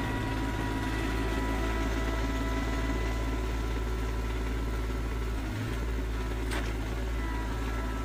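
Rural King RK25 compact tractor's diesel engine running steadily as the tractor drives with a stack of pallets on its loader forks, with a thin steady whine over the engine. A faint click comes about six and a half seconds in.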